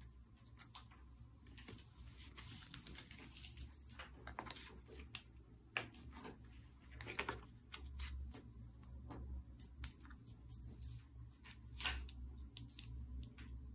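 Stickers being handled, peeled and pressed onto a journal cover: paper backing rustling, with scattered light clicks and taps of fingers at an irregular pace.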